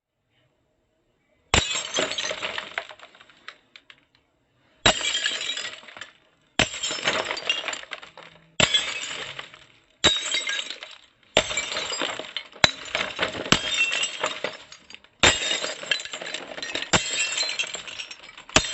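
A series of about ten separate glass smashes, one every one to two seconds, each a sudden crash followed by tinkling shards falling and settling.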